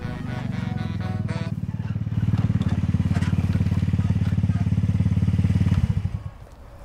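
Small motor scooter engine running as the scooter rides up, growing louder as it approaches, then cutting off a little before six seconds in when the scooter stops.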